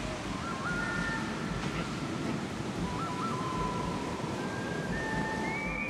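Steady roar of breaking surf, with high held notes stepping up and down in pitch above it.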